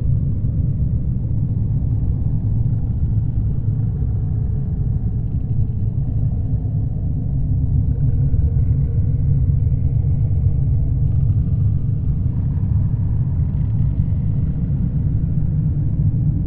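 Underwater ambience: a steady, deep, muffled rumble with no higher sounds above it.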